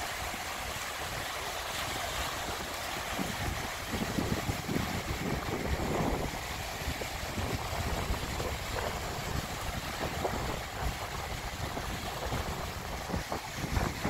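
Small waves breaking and washing up over a sandy beach, a steady rush of surf, with wind buffeting the microphone in gusts, strongest about four to six seconds in and near the end.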